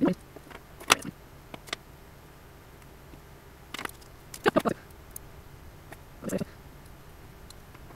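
Round-nose pliers clicking against small metal jump rings as the rings are opened, closed and linked into a chain: a handful of scattered sharp clicks, the loudest about a second in and a quick cluster around four and a half seconds in.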